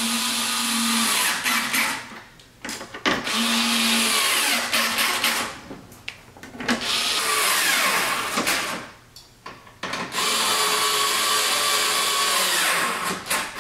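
Cordless drill/driver running in four bursts of about two seconds each, with short pauses between them, driving in the screws that hold a front splitter to the car's underside.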